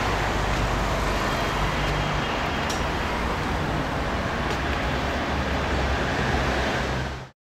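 Steady noise of city street traffic, cutting off abruptly near the end.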